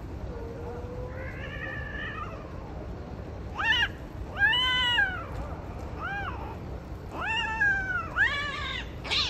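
Cat calls during mating: about seven drawn-out calls, each rising then falling in pitch. The first is faint, and the loudest comes about halfway through.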